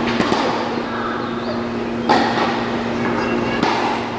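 Two sharp tennis-ball knocks, about two seconds in and again near the end, echoing under the roof of a covered court, over a steady low hum.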